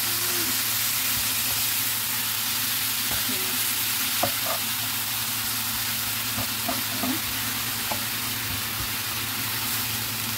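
Thinly sliced beef with garlic and ginger sizzling steadily in oil in a nonstick frying pan as it is stirred with a spatula, with a few light taps.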